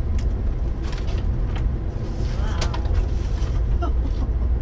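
Steady low rumble of a moving Amtrak Superliner sleeping car heard from inside the bedroom, with scattered clicks and paper rustling as a paper lunch bag is unpacked at the table.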